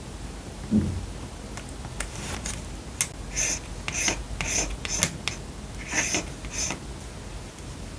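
Hands working with paper and stationery for journal decorating: a soft thump about a second in, then a string of short, crisp paper strokes.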